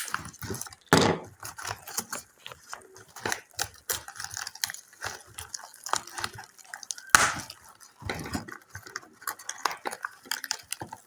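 Small parts and hand tools being handled during a repair: irregular clicking and tapping, with louder knocks about a second in and again about seven seconds in.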